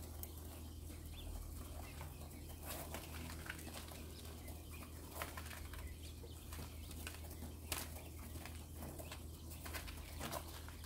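Mini quails moving about a plastic brooder box: scattered scratching and pecking taps in the husk bedding and brief wing flutters, over a steady low hum.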